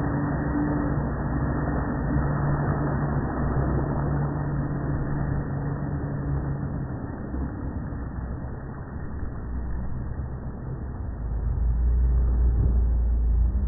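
Brushless RC speedboat running flat out with its throttle jammed open, a steady drone that fades about halfway through as the boat runs away. A deep low rumble builds over the last few seconds.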